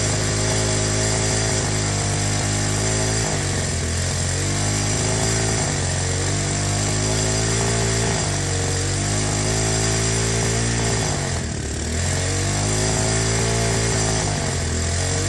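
Hawk 250 dirt bike's single-cylinder four-stroke engine running at a fast idle while water is sprayed into its intake to steam out carbon deposits blamed for its pinging. The engine speed sags and picks back up several times.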